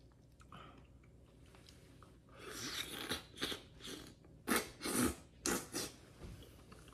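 Biting into and chewing the soft, ripe flesh of a Lisa Pride atemoya: a run of short, sharp eating sounds starting about two seconds in, the loudest ones in the second half.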